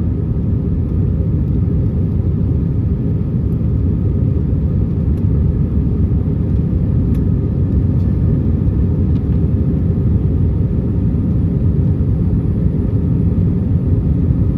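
Steady low rumble inside the passenger cabin of an Airbus A320-200, from its engines and the air rushing past the fuselage, with a few faint ticks.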